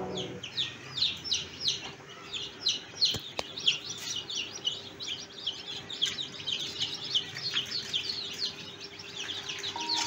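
A crowd of newly hatched chicks peeping nonstop: short, high chirps that fall in pitch, several a second, overlapping one another. A faint steady hum runs underneath.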